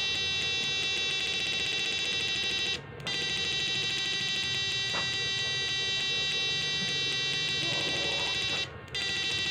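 A repaired electrofishing inverter running under a lamp test load gives a steady, high-pitched whine. The whine cuts out briefly twice, about three seconds in and near the end.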